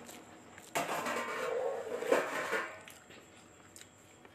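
A person chewing and eating food close to the microphone. A noisy stretch starts sharply about a second in and lasts about two seconds, then it goes quiet.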